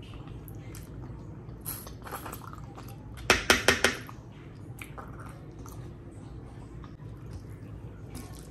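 Fingers mixing curry-soaked rice on a steel plate: soft wet squishing and light scraping, with a quick run of about five sharp taps a little over three seconds in, the loudest sound.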